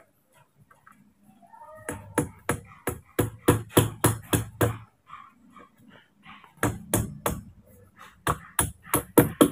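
Hammer blows in two quick runs of about ten strikes each, roughly three a second.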